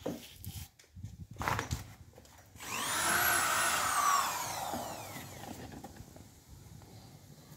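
A few knocks on wood, then a hand-held power tool whines for about three seconds: it speeds up quickly, then its pitch slowly sinks as it works.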